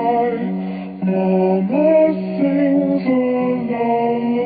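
Slow, soft lullaby melody of long held notes, sung or synthesized in a humming voice, with one note sliding upward about two seconds in.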